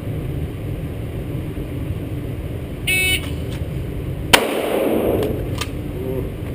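Electronic shot timer sounds a short start beep; about a second and a half later a single shot from a Glock 17C 9mm pistol cracks and echoes, on a fast draw from the holster. A few faint clicks follow.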